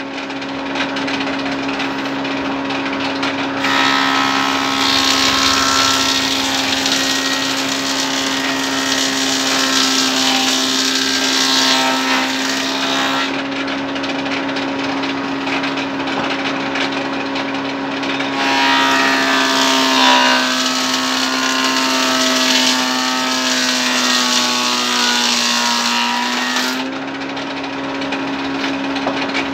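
Large sawmill band saw running with a steady hum, cutting through timber twice: two long, loud sawing passes of roughly ten and eight seconds. Near the end of the second cut the motor's pitch sags under the load, then comes back up as the cut finishes.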